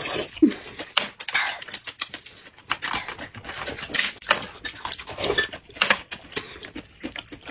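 Two people eating noisily, with chewing and mouth sounds, chopsticks and a spoon clicking against dishes and bowls in a run of short sharp clicks.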